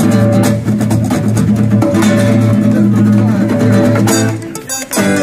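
Two acoustic guitars played together through small amplifiers, a steel-string acoustic and a nylon-string classical guitar, with held chords and plucked notes. About four seconds in, the playing changes to short, choppy strokes with brief breaks.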